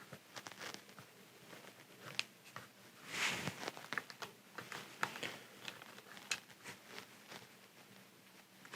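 Quiet scattered clicks and scrapes of a flat-blade screwdriver working at the metal lid of a hard drive, with a longer scrape about three seconds in.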